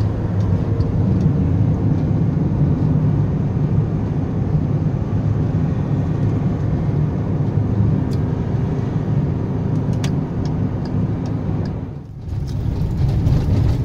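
Car driving at highway speed heard from inside the cabin: a steady low engine and tyre rumble, dipping briefly about twelve seconds in.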